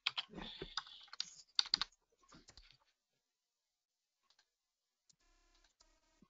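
Typing on a computer keyboard: a quick run of keystroke clicks for about two and a half seconds, then a pause. A faint steady hum comes in about five seconds in.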